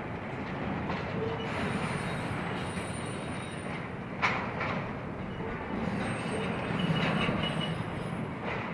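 Union Pacific intermodal freight train rolling past: steady wheel-on-rail noise with faint, high wheel squeal coming and going. A single sharp clank sounds about four seconds in.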